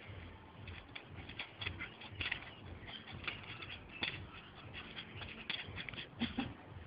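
Staffordshire bull terrier playing with a soccer ball on grass: irregular scuffs, scrapes and knocks of the ball and its paws as it pushes the ball along, with a few sharper knocks.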